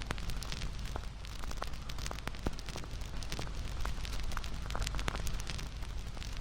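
Crackling bonfire: irregular sharp pops and snaps over a steady low rumble of burning.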